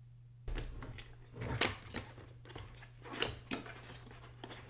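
Cardboard model box being opened by hand: the end flap lifting and the packaging rustling and clicking in a few short bursts, starting about half a second in.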